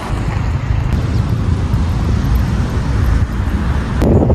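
Outdoor street noise: a steady, loud low rumble of road traffic and wind on the phone's microphone. About four seconds in, the sound changes abruptly.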